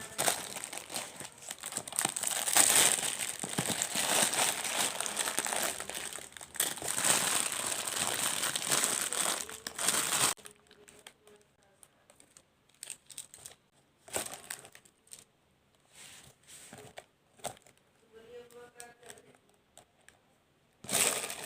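Plastic packaging crinkling and being torn open continuously for about ten seconds. After that come only short, scattered rustles of handling, and one brief loud crinkle near the end.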